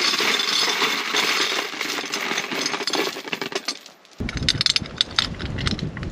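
Metal bike lock chain or cable rattling and clinking as an e-bike is locked up, a dense run of small metallic clicks. About four seconds in it gives way to a low rumbling noise with scattered clicks.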